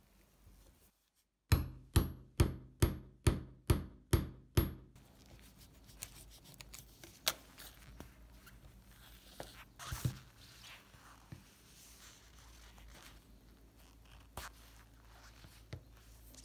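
Eight sharp metal strikes with a high ring, evenly about two a second, followed by faint clicks and light taps as a leather pump cup washer is handled and fitted onto a threaded metal rod.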